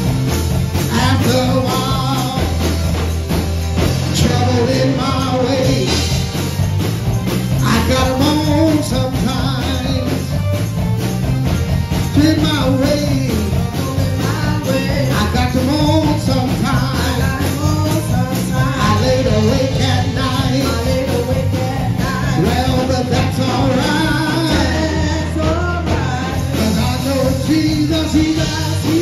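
Live gospel band music with singing: a steady bass and drums under wordless or unclear sung lines, running on without a break.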